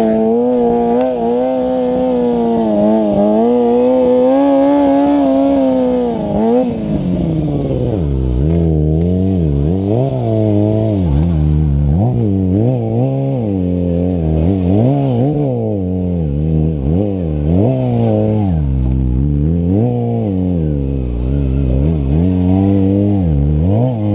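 Sport motorcycle engine, a lime-green Kawasaki, held at steady high revs for about six seconds. It then drops and is revved up and down over and over as the throttle is worked through stunt riding.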